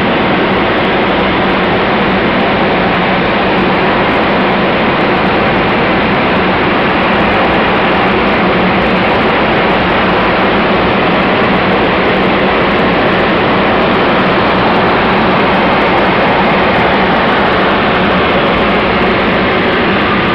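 The four Pratt & Whitney R-1830 Twin Wasp radial engines and propellers of a B-24 Liberator bomber running steadily in flight, heard from inside the nose as a loud, even drone.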